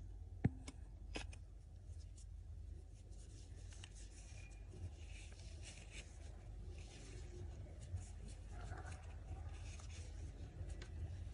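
Soft scratching and rustling of yarn as it is worked with a metal crochet hook, with a couple of light clicks in the first second or so, over a steady low hum.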